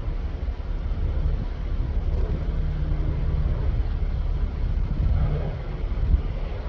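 Crop-dusting airplane's engine droning as it pulls up and climbs away after a spray pass: a steady hum that starts about two seconds in and dips briefly near the end, over a low rumble.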